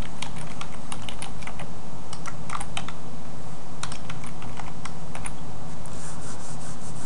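Typing on a computer keyboard: a run of irregular key clicks lasting about five seconds. Near the end the clicks give way to a soft rubbing noise, over a steady low hum.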